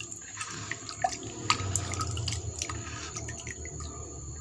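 A hand squeezing and working soaked fermented rice (rice MOL starter) in liquid in a plastic dipper: wet squelching and dripping, with small irregular clicks and splashes.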